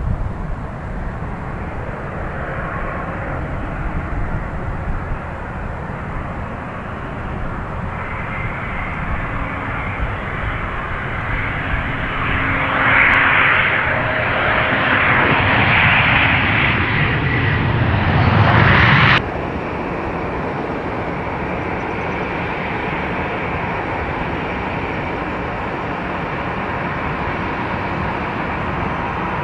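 Airbus airliner's jet engines running with a steady rush. About halfway through they grow louder with a whine, then cut off abruptly, leaving a lower steady engine noise.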